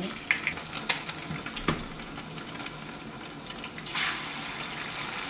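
Eggs frying in oil in a pan, a steady sizzle with a few sharp taps and clicks. The sizzle grows louder about four seconds in, as another egg is cracked into the hot pan.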